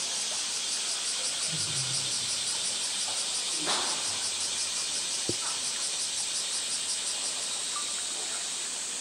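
A chorus of cicadas buzzing steadily and high-pitched, with one sharp knock about five seconds in.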